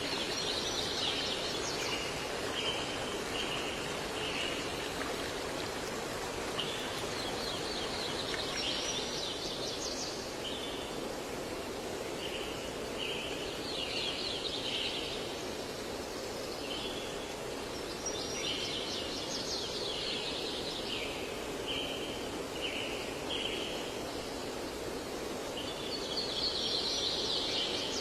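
A songbird repeating the same phrase about every five seconds: a quick high trill followed by a run of four or five short, lower notes. Under it runs a steady rushing background like flowing water.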